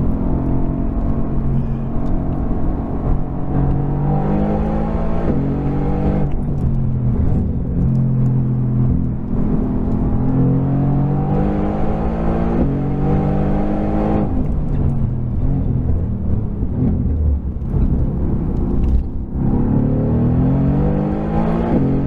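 2019 Mercedes-AMG GT R's twin-turbo V8, exhaust baffles open, under way on track in third gear. The engine note rises under throttle and falls back as the throttle is lifted, several times over, climbing again near the end.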